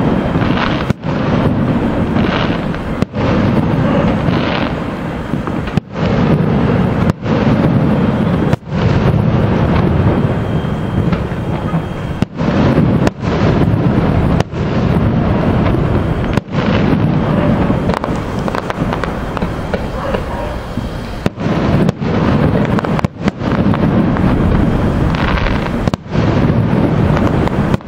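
Aerial fireworks shells bursting thick and fast, merging into a continuous rumble with crackle, broken by short gaps in the sound every second or two.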